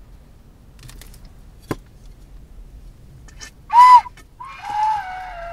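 Recorder (the woodwind) played: a short loud note, then a longer note that wavers and slides down in pitch. A single sharp click about two seconds before the notes.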